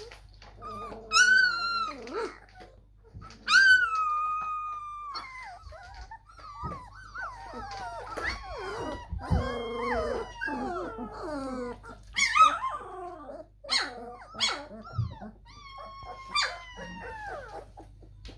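Several three-week-old German Shepherd–Labrador cross puppies whining and yelping: a run of high cries that mostly fall in pitch, with a long drawn-out whine about four seconds in, overlapping calls in the middle, and short sharp yelps later on.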